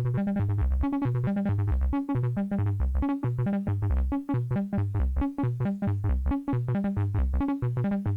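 Buchla Music Easel synthesizer playing a sequenced pattern: a few low notes step round and repeat under quick, short enveloped notes. The ToolBox envelope generator cycles on its own against the pulsar clock, which gives an uneven, asymmetrical rhythm.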